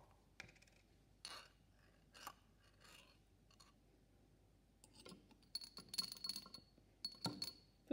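Faint handling sounds of a small glass jar of sand: its lid being unscrewed, then scattered light clicks and scrapes. From about five seconds in comes a denser run of ringing glass clinks and scraping.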